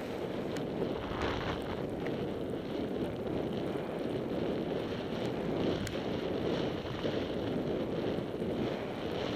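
Steady rush of wind over the microphone of a camera carried by a skier descending through deep powder, mixed with the hiss of skis through the snow, swelling now and then with the turns.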